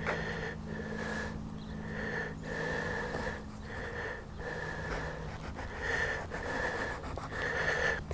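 A man's heavy, wheezy breathing, rushes in and out under a second each with short pauses between, while he concentrates on cutting.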